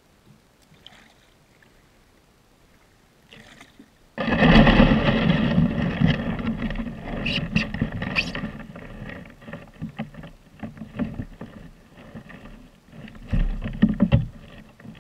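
Kayak on the river: water splashing and rushing around the hull with scattered knocks, starting abruptly about four seconds in after a faint opening, then easing off and picking up again near the end.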